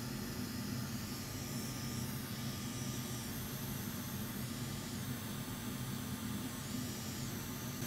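Hot air rework station and fume extractor running together: a steady rushing hiss of blown air with a low fan hum, as hot air at 380 °C is aimed at the underside of a circuit board to desolder a connector.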